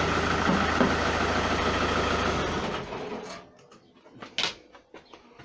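Ford Mondeo 2.0 TDCi diesel engine running steadily, then switched off about two and a half seconds in and dying away within a second. A few short knocks and clicks follow.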